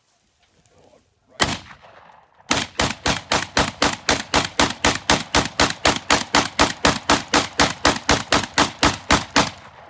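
A shotgun fires a single shot, then about a second later a fast, even string of some thirty shots at roughly four a second, emptying a 30-round magazine.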